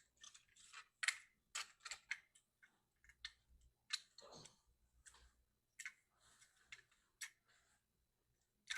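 Faint, irregular clicks and light taps from small diecast metal toy trucks and their moving parts being handled, with a longer, softer sound about four seconds in.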